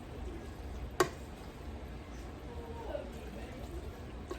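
Kitchen cookware handling: a single sharp knock about a second in, over a low steady hum.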